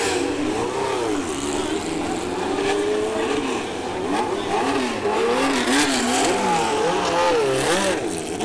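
Vintage Formula One car engines running and being revved, the pitch swooping up and down with repeated throttle blips.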